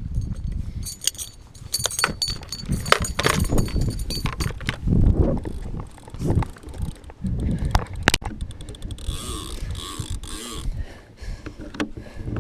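Gear being handled in a small fishing boat: irregular clicks, knocks and metallic jingling over a low rumble.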